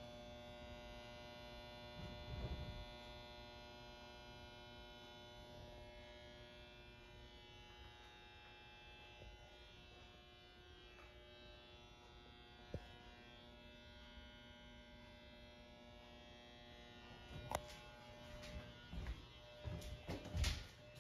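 A faint, steady buzzing hum with many even overtones. There is a sharp click about halfway through, and a run of knocks and clicks near the end.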